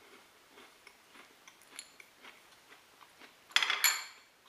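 A crisp cinnamon sugar cookie being crunched: faint scattered crackles, then a loud burst of crunching about three and a half seconds in.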